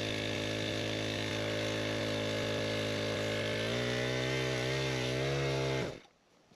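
Koshin SEV-25F four-stroke engine pump running steadily while pumping water. About four seconds in, its pitch shifts and wavers, and the engine sound stops just before the end.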